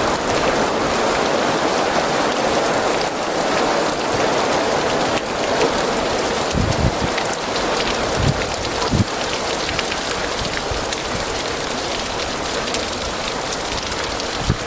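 Heavy rain falling steadily in a thunderstorm, a dense even hiss. A few brief low buffets of wind on the microphone come about halfway through.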